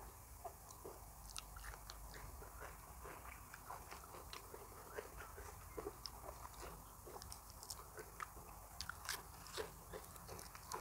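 A person chewing crisp raw vegetables close to the microphone: faint, irregular crunches and small wet mouth clicks.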